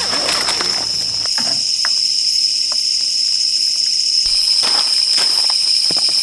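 A steady, high-pitched chorus of night crickets trilling. There is rustling of tent fabric in the first second and a few light taps of camping gear being handled later.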